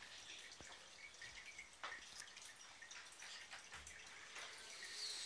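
Faint water trickling and dripping from an aquarium filter's outflow falling into the tank, with scattered small plinks.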